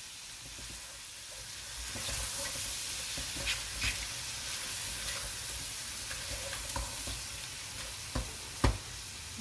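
Shrimp sizzling as they fry in butter in a pot, stirred and tossed with a spatula. The sizzle swells about two seconds in, and the spatula knocks against the pot a few times, loudest near the end.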